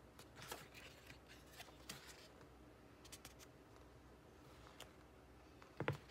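Faint paper rustles and soft page flips as a photobook's pages are turned by hand, then a short thump near the end as the book is flipped shut.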